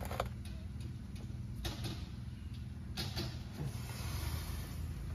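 Knocks and scrapes of the center differential lock actuator being handled and rocked into place against a Lexus GX470 transfer case, with a few sharp knocks near the start, about a second and a half in and about three seconds in, over a steady low hum.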